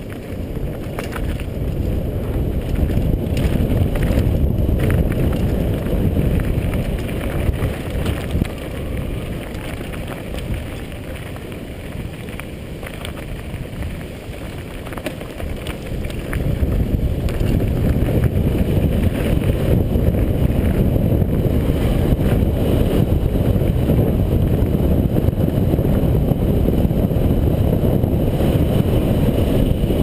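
Wind rushing over a helmet-mounted GoPro during a fast downhill mountain-bike run, with the bike's tyres and frame rattling over a dirt and rocky trail. The noise grows louder about halfway through.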